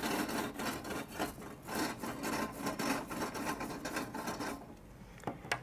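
A brush scrubbing the air fryer's heating element in repeated short, scratchy strokes, which stop about four and a half seconds in; two clicks follow near the end.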